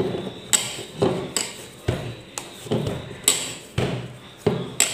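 Stiff murukku dough being kneaded by hand in a bowl: a run of uneven knocks and thuds, about two a second, as the dough is pressed and pushed against the bowl.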